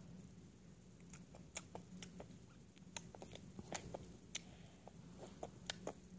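A toddler chewing a mouthful of soft sweet bread (rosca de reyes), with faint wet mouth clicks and smacks scattered irregularly from about a second in.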